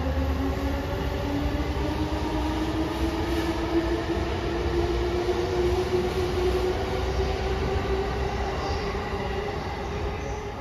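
Keiyo Line electric commuter train running, heard from on board: the traction motors' whine rises slowly in pitch as the train gathers speed and levels off near the end, over steady wheel and rail noise.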